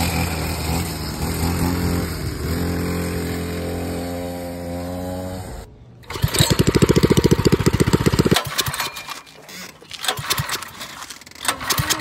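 A small pit bike engine runs steadily, its pitch rising a little. Then a go-kart's small single-cylinder engine runs loudly with a rapid even beat for about two seconds and stops abruptly, followed by irregular clicks.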